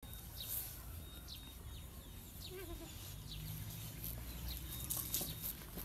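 Bangkaew puppies whimpering and yelping faintly: a run of short, high, falling squeaks and a brief wavering whine about two and a half seconds in.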